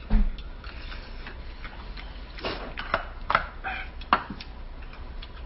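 Metal spoons clinking and scraping against stainless steel rice bowls at a meal, a scattering of light, irregular clicks, with a dull thump just as it begins.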